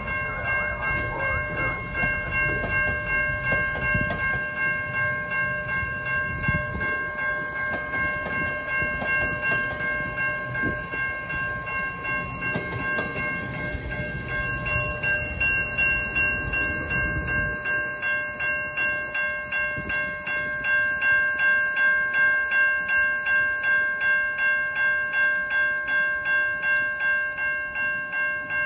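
Level-crossing warning bell ringing steadily, about two strokes a second, while a GO Transit bilevel commuter train rolls past with a low rumble of wheels on rail. The rumble stops a little over halfway through as the last car clears, leaving the bell ringing alone.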